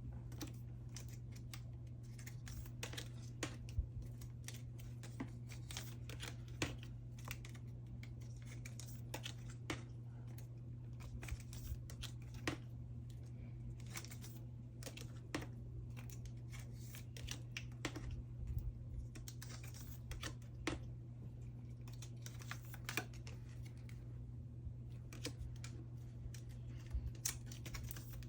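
Photocards being handled and slid out of plastic sleeves: irregular small clicks, taps and plastic rustles over a low steady hum.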